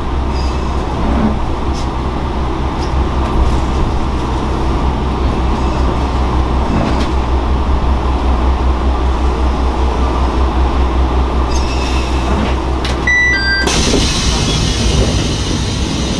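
Tarumi Railway diesel railcar running, heard from inside the cab end: a steady low engine hum with constant running noise. About three seconds before the end, a few brief high tones are followed by a loud hiss.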